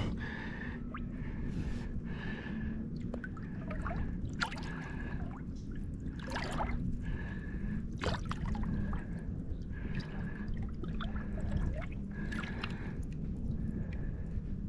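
Water splashing, dripping and gurgling as a snook is handled and held in the water beside the boat, with a steady low hum and a faint pulsing higher tone running underneath.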